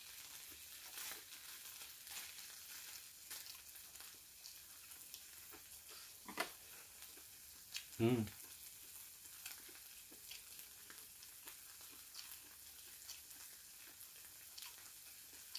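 Marinated webfoot octopus sizzling faintly in a frying pan on a portable gas stove, a steady soft hiss. A short clink about six seconds in and a brief low thump about two seconds later.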